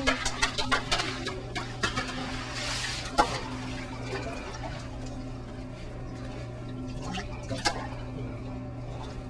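Water splashing and dripping in a church baptistry tank as a man stands in it just after immersion baptism, busiest in the first second, with a few sharper splashes later, the loudest about three seconds in. A steady low hum runs underneath.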